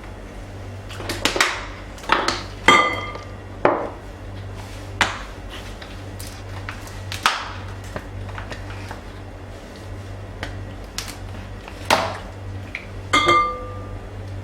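Glassware and kitchen utensils knocking and clinking on a counter, about ten separate knocks, two of them, about three seconds in and near the end, ringing briefly like struck glass, over a steady low hum.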